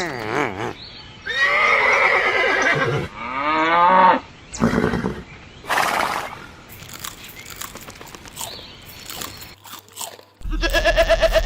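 Farm animal calling: two long wavering calls in the first half, a couple of short noisy bursts, then another steadier call near the end.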